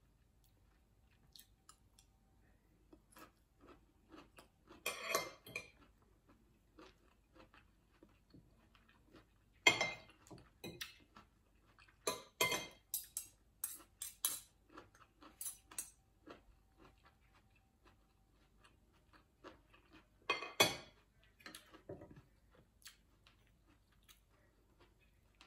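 Metal spoon and fork clinking and scraping against a glass bowl, in scattered clusters with a quick run of clinks in the middle, and quiet chewing in between.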